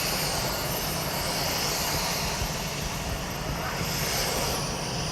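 Dyson OmniGlide cordless stick vacuum running, a steady rushing motor and airflow noise with a low hum underneath.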